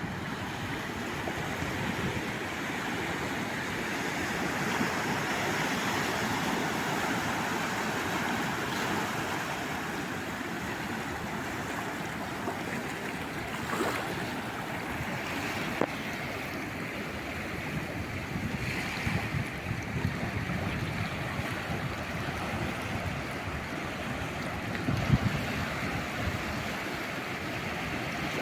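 Calm sea waves washing onto the shore, a steady rush of surf that swells over the first few seconds and then eases. A few brief ticks and low thumps come in the second half.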